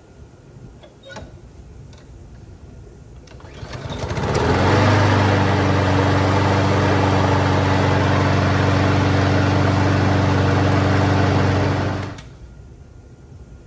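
Honda HRR2169VKA lawn mower's single-cylinder engine starting about four seconds in, catching at once and running steadily on its new replacement carburetor, then stopping abruptly near the end. A few light clicks come before the start.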